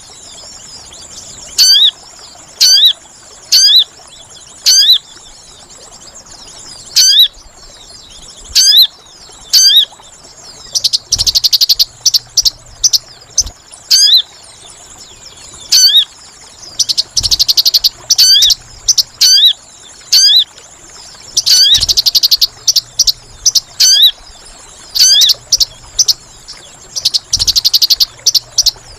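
Lure-call recording of small songbirds (sogon) used by bird trappers: sharp, loud call notes repeated about once a second, and from about a third of the way in, bursts of rapid chattering trills. A steady high-pitched insect drone runs underneath.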